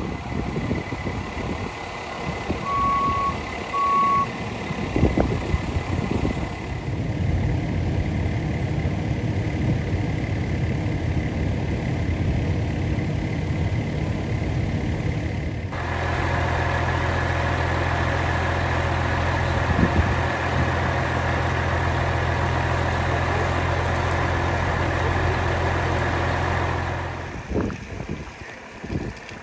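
Two short electronic beeps about three seconds in, then a large vehicle's engine running steadily, stepping up louder about halfway through and dropping away near the end.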